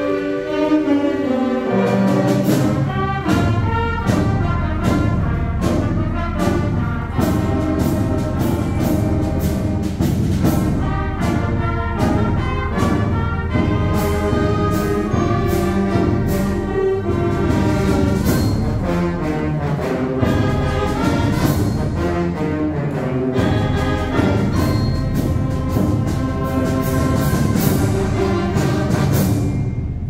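School wind orchestra playing the loud closing passage of a concert-band overture. Clarinets, flutes, tuba and brass play with frequent sharp percussion strokes, after a falling bass line in the first two seconds. It builds to the final chord, which is cut off at the end.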